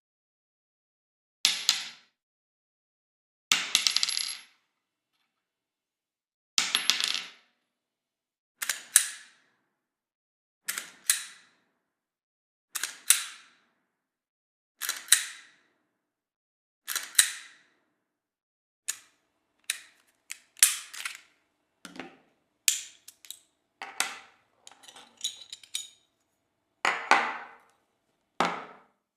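A string of separate short sound effects, each a sharp clinking impact that dies away within a second, with dead silence between them. They come about every two seconds at first and crowd closer together in the last ten seconds.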